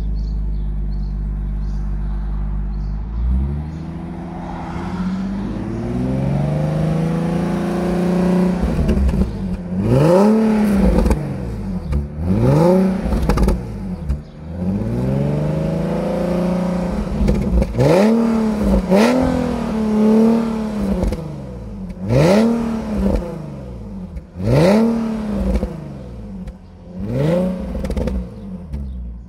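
Nissan 370Z's 3.7-litre V6 running through a sports-sound aftermarket rear exhaust section. It idles steadily just after starting, then comes one slow rev up and back down. From about ten seconds in the throttle is blipped about a dozen times, each rev rising and falling sharply.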